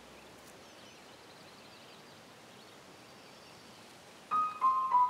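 Faint outdoor hiss with a few faint high chirps, then a piano enters near the end with three notes stepping down in pitch.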